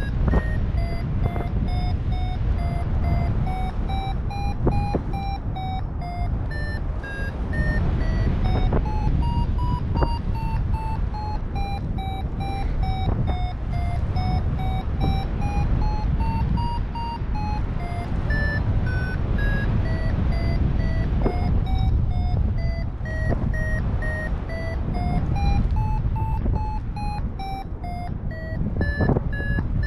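Paragliding variometer beeping: a continuous run of short beeps whose pitch slowly rises and falls, tracking the glider's climb and sink, over heavy wind noise on the microphone.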